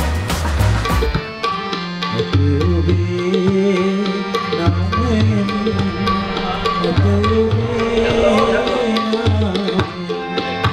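Tabla drumming, deep bass-drum strokes in a steady rhythm under a sustained melody line. It takes over from different music about a second in.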